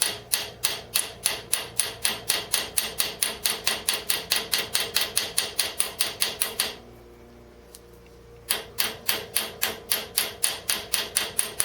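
Small hammer rapidly tapping a hot nail used as a rivet, peening its head over, about four blows a second. The tapping stops for about two seconds past the middle, then starts again.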